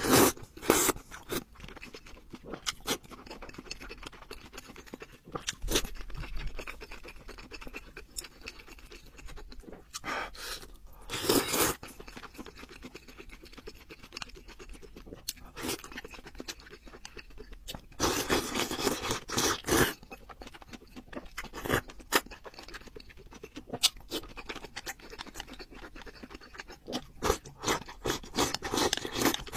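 Close-miked eating sounds: chewing and slurping of noodles and sauce, with many sharp clicks of chopsticks against a ceramic bowl. Longer slurps come about eleven seconds in and again near twenty seconds.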